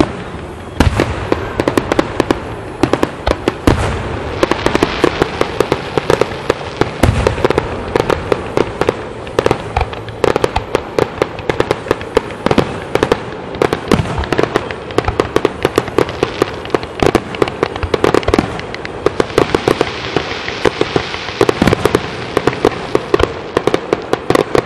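Aerial firework shells bursting in quick succession, sharp bangs several times a second, with stretches of crackling between them.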